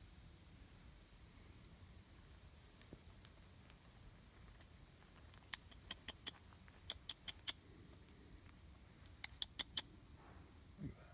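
Sharp clicks in quick runs of three to five, about six a second, coming in three groups over a faint hiss.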